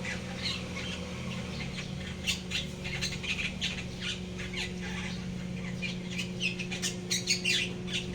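Rapid, irregular high-pitched chirps and squeaks from small animals, some falling in pitch, over a steady low hum.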